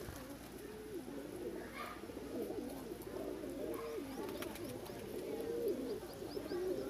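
A flock of domestic pigeons cooing, many low warbling coos overlapping without a break.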